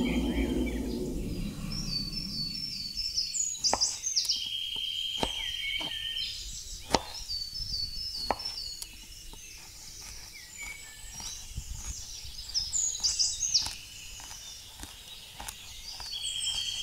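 Small kitchen knife slicing a tomato on a wooden cutting board, the blade tapping the board in sharp, irregular clicks. Birds chirp in repeated high notes throughout, with a steady high trill near the start, about five seconds in, and near the end. A low sound dies away over the first two seconds.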